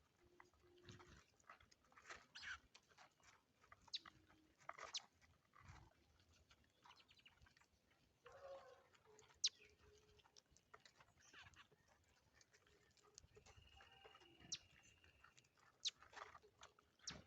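Birds at a backyard seed feeder, faint: scattered short chirps and clicks, with a couple of longer calls, one about halfway through and a held one near the end.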